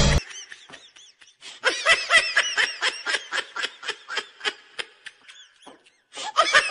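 Laughter: a run of short, high-pitched giggles, about three or four a second, starting about a second and a half in. A second burst of giggling comes near the end.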